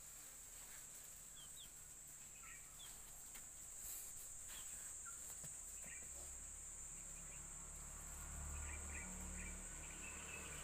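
Faint, steady, high-pitched insect drone, with a few brief faint chirps over it.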